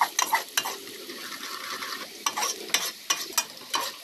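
Chopped onion, ginger and garlic sizzling in hot oil in a metal pot, being fried toward brown, while a metal ladle stirs and scrapes against the pot with repeated sharp clinks.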